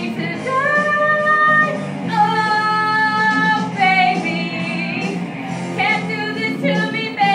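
Karaoke singing: one voice through a microphone holding long notes over a backing track.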